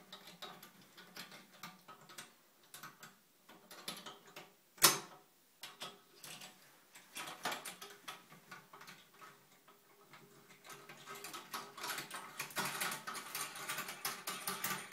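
Small clicks and taps of toilet seat hinge fittings being handled while a bidet attachment is fitted under the seat. There is one sharp knock about five seconds in, and the clicking becomes a denser rattling near the end.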